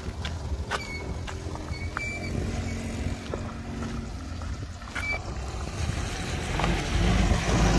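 Mitsubishi Pajero Sport engine running at low speed under load as the SUV crawls over rough off-road ground, with a few sharp knocks from the vehicle. The engine gets louder near the end as it pulls through.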